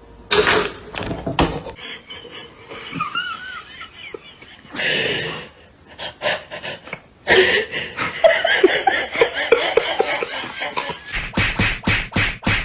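People laughing, then a quick run of sharp, evenly spaced clicks or knocks, about four a second, near the end.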